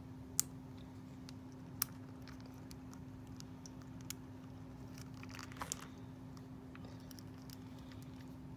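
Small sharp clicks and soft ticks as fingers and nails handle a plastic fashion doll's body at the neck, with two crisp clicks in the first two seconds and fainter ticks later, over a steady low hum.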